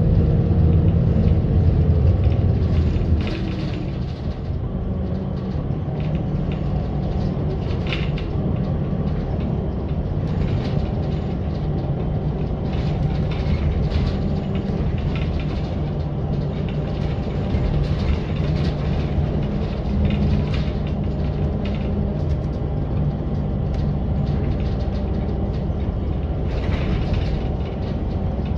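Bus engine and road noise heard from inside the moving bus, louder for the first three seconds and then settling to a steady lower hum, with occasional rattles.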